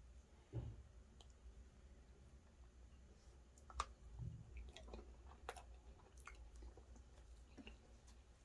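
Quiet eating sounds from a person chewing turkey and fufu: scattered soft mouth clicks and smacks, with a couple of low soft thumps.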